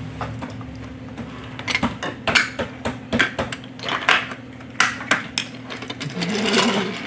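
Plastic Mega Bloks pieces clicking and clattering as they are handled and pressed together into a toy Toby tram engine, a quick run of sharp clicks and knocks in the middle.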